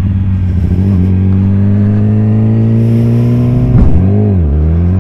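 Sport motorcycle engine accelerating, its pitch climbing slowly and steadily. About four seconds in there is a sharp knock, the loudest moment, as the pitch dips briefly and recovers.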